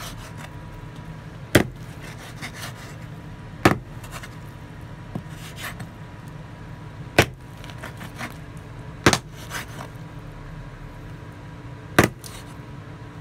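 Meat cleaver chopping raw chicken on a wooden cutting board: five sharp chops spaced a couple of seconds apart, with lighter knocks and scraping of the blade and meat on the board in between, over a steady low hum.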